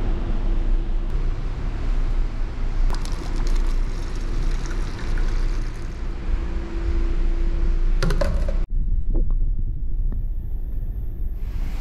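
Steady low rumble of an overnight car ferry's engines carried through the ship, with a few light clicks about three and eight seconds in.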